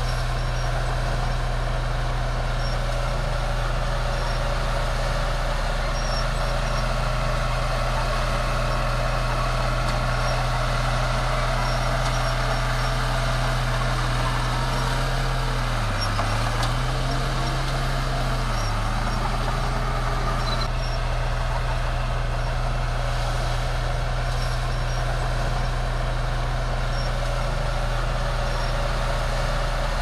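Heavy diesel earthmoving machinery running steadily with a deep, continuous drone. The engine note dips briefly twice near the middle, as if lugging under load, then recovers.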